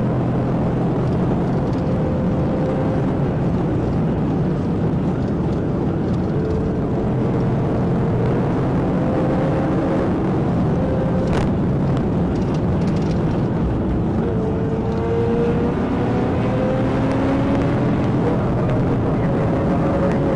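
Steady engine and road noise inside a Dodge Charger patrol car's cabin during a high-speed pursuit, with engine tones drifting slowly up and down as it speeds up and eases off. A single brief sharp tick about eleven seconds in.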